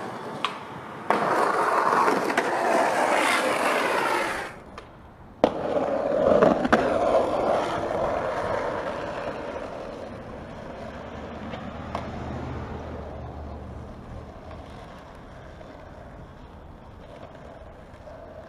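Skateboard wheels rolling over rough pavement: a loud rush of rolling noise that cuts off suddenly after a few seconds. Then a sharp clack of the board and a second rush that slowly fades as the board rolls on.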